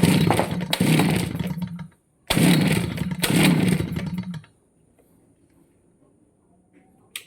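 Kawasaki TD40 two-stroke brush cutter engine running in two bursts of about two seconds each at a steady speed, each one cutting off, with a short gap between. Then quiet apart from a single click near the end.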